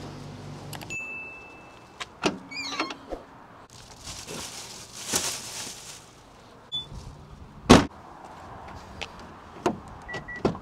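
A car boot being loaded: plastic bags rustling among scattered knocks and clicks, with one loud thud about three-quarters of the way through and two short high beeps.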